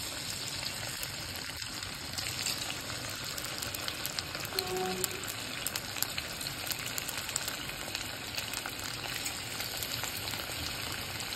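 Coated chicken strips deep-frying in hot oil in a kadhai: a steady sizzle with fine crackling pops, as more pieces are slid into the oil one at a time.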